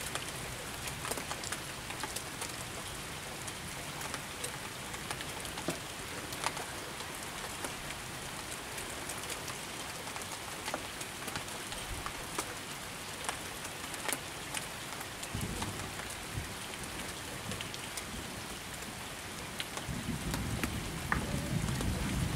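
Steady rain, with single drops ticking sharply on a nearby surface. A low rumble comes in near the end.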